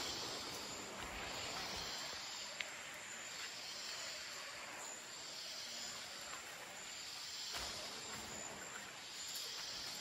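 Forest insects droning, a high hiss that swells and fades roughly every second and a half, with one sharp tick about two and a half seconds in.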